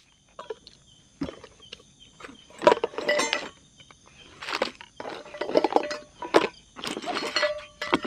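Camping cookware and gear handled on a folding table: irregular clinks, knocks and rustles as pots and containers are picked up, unpacked and set down, with a brief metallic ring now and then.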